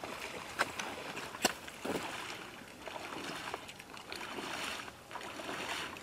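Wading steps sloshing through shallow marsh water in hip waders, with a few sharp splashes in the first two seconds.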